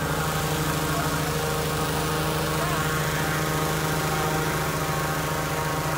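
Engine-driven inflator fan running steadily, a constant small-engine hum over a rush of air, as it blows cold air into a hot-air balloon envelope during cold inflation.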